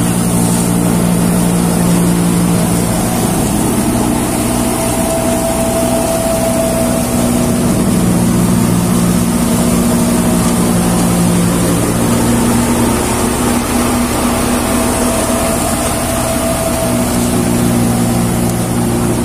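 Jumbo Tokri MA 7 crop thresher running steadily as mustard plants are fed in, a loud machine hum and drone whose pitch shifts slightly now and then.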